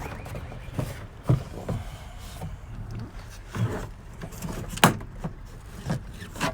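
Irregular knocks and clicks of a plastic interior trim piece being handled and pulled free inside a Honda Accord, with one sharper knock near the end.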